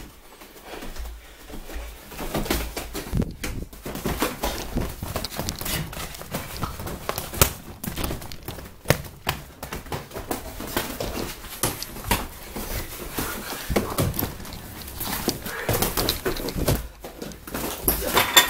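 Boxing-gloved punches landing in a fight: a quick, irregular run of thuds and slaps, a few hits much louder than the rest.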